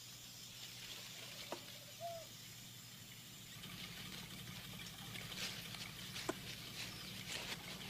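Faint jungle background on a film soundtrack: a steady hiss with a few soft clicks and one short chirp about two seconds in, growing busier in the second half.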